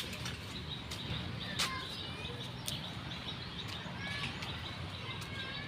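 Birds chirping in short, quick calls over a low steady hum, with a few sharp clicks, the clearest about one and a half seconds in.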